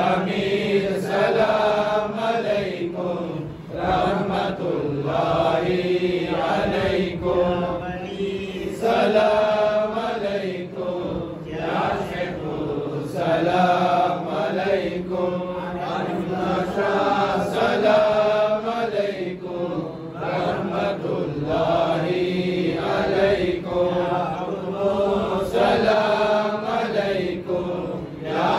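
A group of men chanting a salam, the devotional salutation to the Prophet, together in a steady, unaccompanied recitation.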